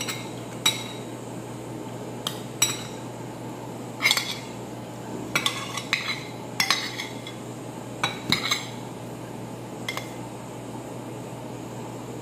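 Metal spoon and fork clinking and scraping against a plate as food and rice are mixed and scooped: about a dozen sharp, ringing clinks, some coming in quick runs of two or three.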